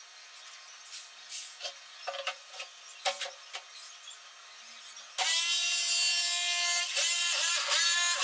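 Handheld electric jigsaw cutting into a plastic drum. There are a few light knocks and scrapes first, then about five seconds in the saw starts with a loud, steady whine that dips briefly twice near the end.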